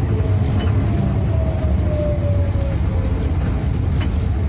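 Vintage Type A tram running, heard from on board: a steady low rumble, with a whine that slowly falls in pitch over the first three seconds and then fades.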